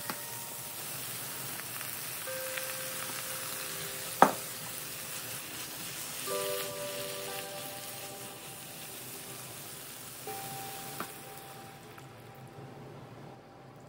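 Food sizzling in a hot frying pan as a stir-fry of chicken, peanuts, chestnuts and shiitake is turned with a spatula, with one sharp knock about four seconds in. The sizzle dies down near the end. Soft chime-like music notes play now and then.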